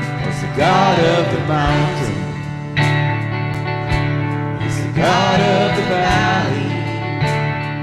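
Live church worship band playing a contemporary worship song: a singer's voice over guitar and steady bass, with regular drum hits.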